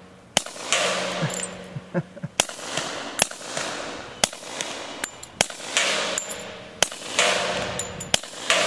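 Suppressed FNP-45 Tactical .45 ACP pistol fired about seven times at a steady pace of roughly one shot a second. Each muffled shot is followed by a metallic clang of the bullet striking a steel drum downrange.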